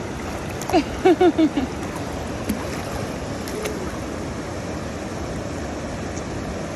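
Steady rush of flowing water, with a few short, falling vocal cries from a person about a second in.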